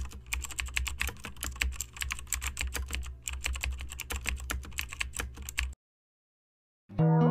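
Rapid computer-keyboard typing clicks over a low hum: a typing sound effect for on-screen text being typed out. It cuts off suddenly about six seconds in, and after a second of dead silence, guitar music starts at the very end.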